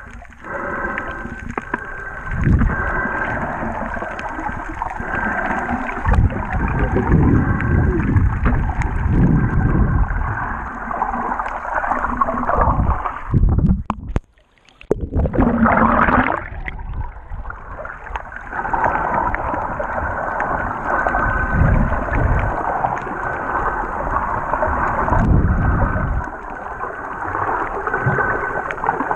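Muffled water sloshing and rumbling picked up by an action camera in a waterproof housing as a snorkeler swims underwater. About halfway through it drops almost to quiet for a moment as the camera breaks the surface.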